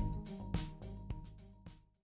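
Background music with a beat, fading out to silence.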